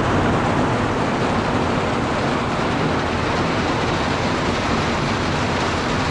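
Heavy rain pouring down onto wet asphalt, a loud, steady hiss.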